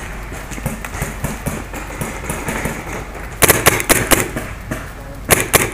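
Paintball marker firing: a rapid burst of about seven shots about three and a half seconds in, then two or three more shots near the end.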